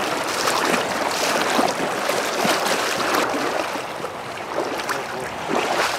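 Steady rushing of a shallow, fast-flowing stream running over a gravel riffle.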